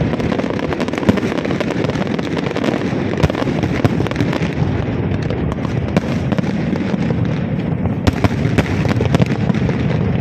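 Aerial fireworks display: a dense, unbroken barrage of bangs and crackling bursts following one another in quick succession.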